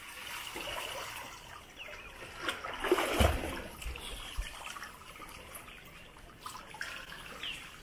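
Swimming-pool water splashing and trickling as swimmers stroke and kick through it, with a low thump about three seconds in.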